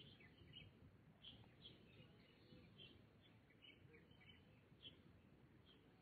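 Faint chirping of several small birds, short high chirps coming a few times a second, over a steady low background rumble.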